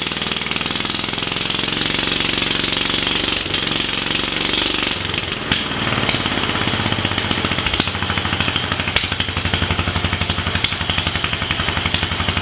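1946 Wisconsin AHH single-cylinder air-cooled engine running on a stand. About five seconds in, its firing slows to a slower, even beat.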